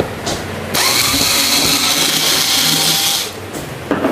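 Electric screwdriver running steadily for about two and a half seconds as it backs out a screw, starting a little under a second in and stopping just after three seconds.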